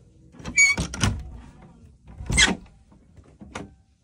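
Wooden door with a metal lever handle being unlatched and pulled open. There are latch clicks with a short squeak about half a second in, a louder squeaky scrape of the door at about two and a half seconds, and a sharp click near the end.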